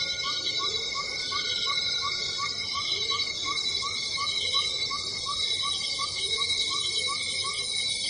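Cicada buzzing steadily with a high, shimmering drone. A quieter short chirp repeats about three times a second and fades out near the end.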